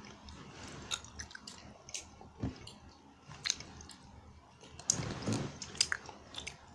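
Close-up chewing of gummy jelly candy, with scattered wet mouth clicks and smacks that grow busier about five seconds in.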